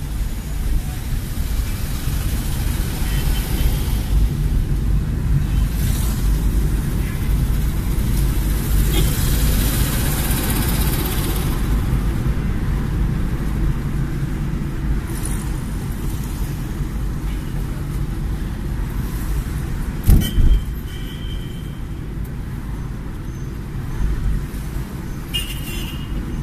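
A car driving through city traffic, heard from inside the cabin: a steady rumble of engine and road noise that swells for a few seconds in the middle. A thump about twenty seconds in is followed by a brief high tone, and another brief high tone comes near the end.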